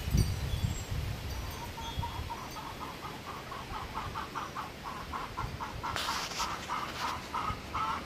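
A bird calling a long series of short, evenly spaced notes, about three a second, growing louder toward the end. Wind buffets the microphone in the first second.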